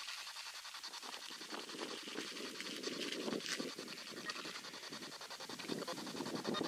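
SB7 spirit box sweeping through radio stations: static hiss chopped into rapid, evenly spaced bursts, with brief fragments of radio sound.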